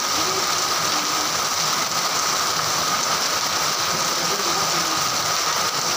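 Heavy rain falling steadily, with water streaming off a roof edge.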